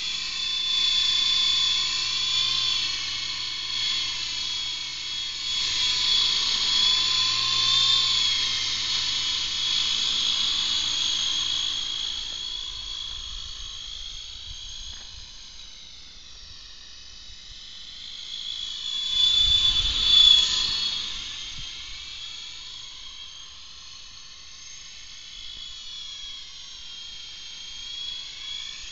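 Radio-controlled model helicopter flying, its high-pitched whine rising and falling in pitch and loudness as it manoeuvres. A brief louder rush about two-thirds of the way through.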